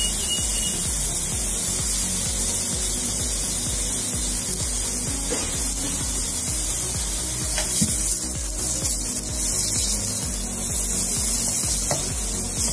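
Chicken breasts sizzling on a hot grill pan, a steady hiss, with background music underneath.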